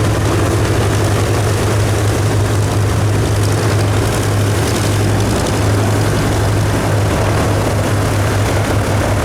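Propeller aircraft engine running steadily, a loud continuous drone with a low hum and no rise or fall in pitch.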